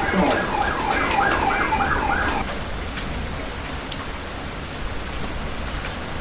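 Heavy rain falling steadily, with scattered sharp drop ticks. For the first two and a half seconds a siren yelps through the rain, its pitch swinging quickly up and down about three times a second, then stops.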